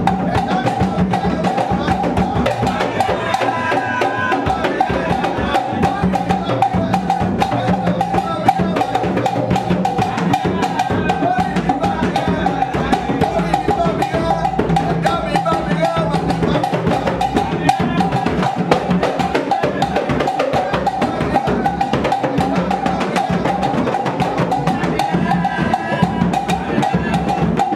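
Yoruba ritual drum ensemble: frame drums struck with sticks and large barrel drums played by hand, keeping up a fast, steady, dense rhythm, with voices singing over it.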